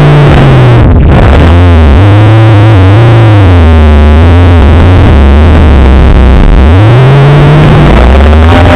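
Extremely loud, clipped, distorted synth-like drone, the typical earrape audio of a void meme. Its low pitch drops about a second and a half in, wavers, then swoops up and back down about seven seconds in.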